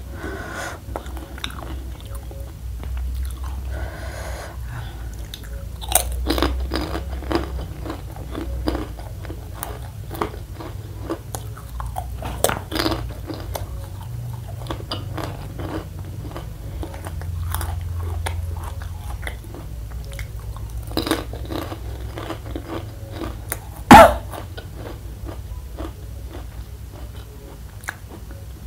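Close-up chewing and crunching of crispy spicy fried macaroni, a steady run of crisp crunches and mouth sounds over a low hum. About three-quarters of the way through comes one much louder sharp crunch.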